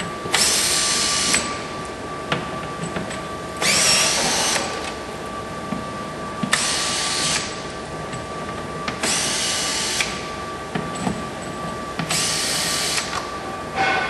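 Cordless drill/driver with a T30 Torx bit running in five short bursts of about a second each, backing out the Torx screws that hold a Mini Cooper door's component housing. Small clicks come between the bursts.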